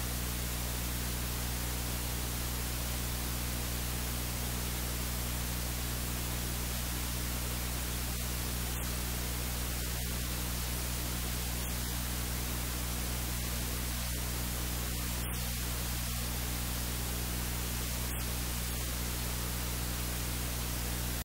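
Steady, even hiss like static, with a low steady hum beneath it: electronic noise in the recording rather than any kitchen activity.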